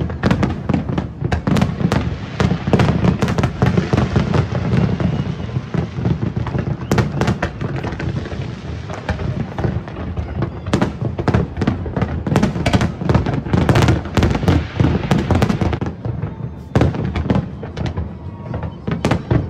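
Aerial fireworks display: shells bursting in a dense, continuous series of bangs and crackling, several every second.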